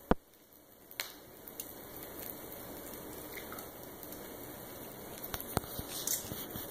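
Oil sizzling steadily in a skillet as flour-coated rice balls fry, with a few light clicks of metal tongs against a plate.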